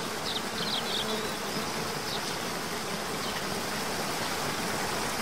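Steady rushing of a waterfall, an even hiss, with a few faint high chirps in the first two seconds or so.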